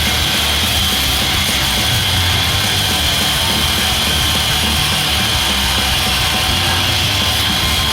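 Loud background rock music.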